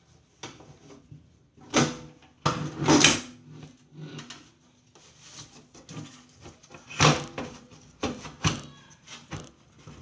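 Irregular knocks and clatter of hard objects being handled, with louder clacks about two, three, seven and eight and a half seconds in.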